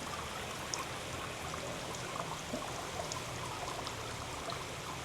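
Water trickling and dripping steadily down a moss-covered stone wall into a pool, with scattered small drip ticks.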